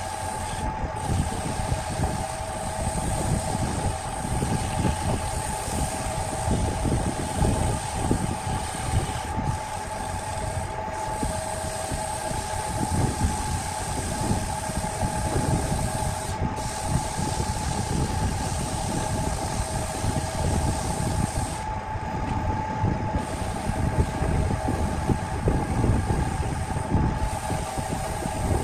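Belt-driven wood lathe running, its electric motor giving a steady whine over an uneven rumble, while sandpaper is held against the spinning wooden dish.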